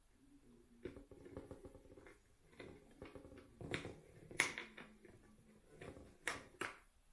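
Hands handling plastic packaging and parts: irregular rustling with several sharp clicks and taps, the loudest about halfway through and two more near the end.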